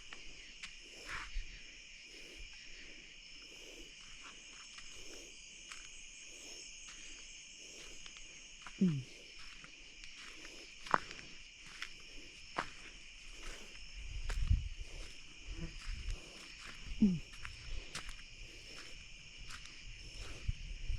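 Night chorus of crickets and other insects, a steady high trilling in two bands of pitch. Twice a short low sound drops in pitch, and there are a few faint thuds and clicks with a low rumble about two thirds of the way in.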